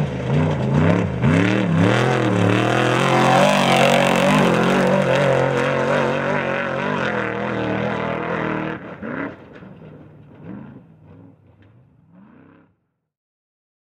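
Unlimited desert race truck's engine revving up and down, loud for most of the time, then fading away as it moves off, before the sound cuts off abruptly near the end.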